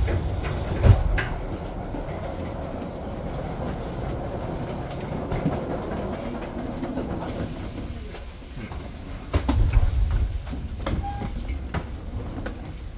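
Tobu 8000-series electric train running, heard from inside the front car: a steady low rumble with a sharp thump about a second in, then wheels clicking over rail joints, louder from about nine seconds in.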